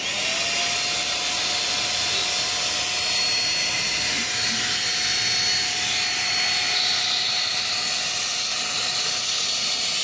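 INALSA Ozoy Plus 700-watt handheld vacuum cleaner switched on. Its motor winds up within the first half second, then runs at a steady whine over a rushing of air as the crevice nozzle sucks dust from a window track.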